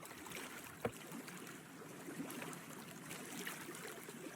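Faint ambient water lapping and trickling, with one sharp click a little under a second in.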